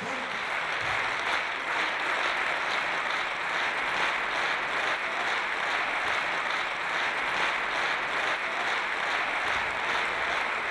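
Indoor arena crowd applauding steadily after the winner of the final is announced.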